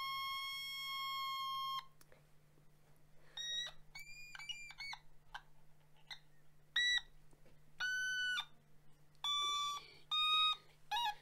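Otamatone, a handheld electronic toy synth, playing: one long steady note held for about two seconds, then a string of short notes at different pitches, each bending in pitch and tone as the mouth is squeezed open and shut.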